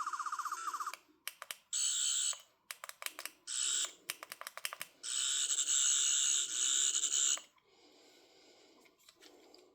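Plastic toy sonic screwdriver's electronic sound effect from its small speaker, worked by its button: a pulsing tone, then short bursts of high buzzing separated by quick clicking of the button, the longest burst about two seconds from about five seconds in.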